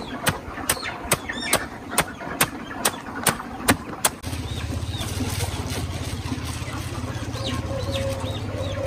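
Machete chopping a pile of shredded plant stalks on a woven sack laid on the ground, sharp regular chops about two and a half a second. About four seconds in the chopping stops and a steady low drone takes over, with faint high chirps of chickens above it.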